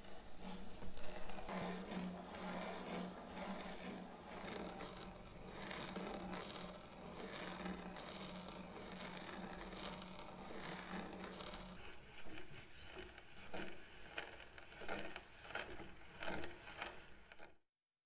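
Electric drill running at a steady speed, its bit boring dowel holes into wood through a metal dowelling jig, then stopping about twelve seconds in. A string of light clicks and knocks follows before the sound cuts off.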